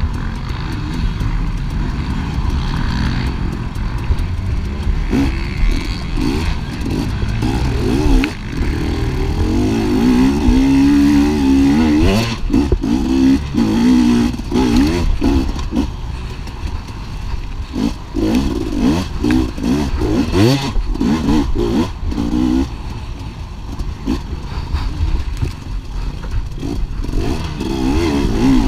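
250cc dirt bike engine racing cross-country, revving up and dropping off again and again as the rider works the throttle and gears. Knocks and rattles from the bike over rough ground run through it.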